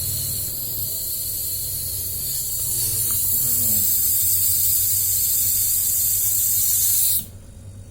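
Refrigerant (freon) gas hissing out of a refrigerator's sealed system, being let out to correct an overcharge that has frosted the compressor pipe. It cuts off suddenly about seven seconds in, over a steady low hum.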